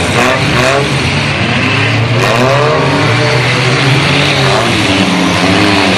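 Demolition derby car engines revving hard, several pitches rising and falling over one another, above a steady low engine drone.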